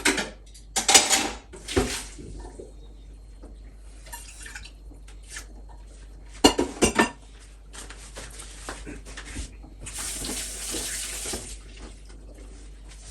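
Boiled noodles being drained at a kitchen sink: a metal pot and utensils clattering in the first couple of seconds and again about six and a half seconds in, and water rushing into the sink for about a second and a half near the ten-second mark.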